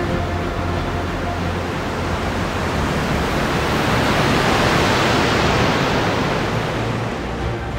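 Rushing roar of the wings of a vast flock of Baikal teal in flight, swelling to its loudest in the middle and easing off near the end.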